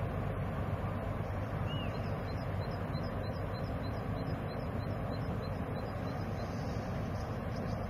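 Steady low hum of a passing cruise ship's engines. A small bird chirps over it in a quick regular series of high notes, about three a second, through the middle of the stretch.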